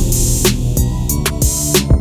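Background music with a steady drum beat over sustained instrument tones.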